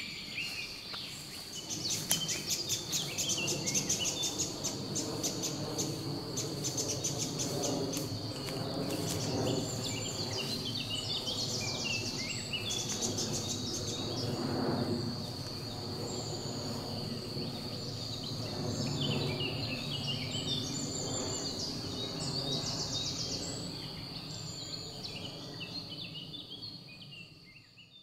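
Forest ambience: a steady high cricket trill with birds chirping and singing over it. It fades out near the end.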